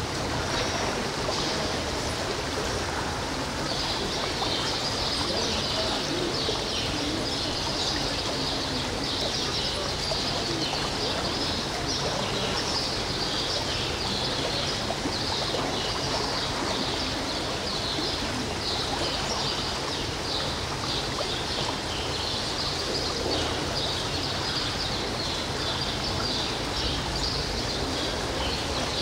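Many small birds chirping busily and without pause over a steady rushing background noise.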